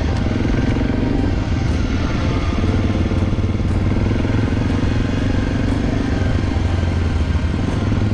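Honda NX250 motorcycle's single-cylinder engine running steadily at a near-constant pitch.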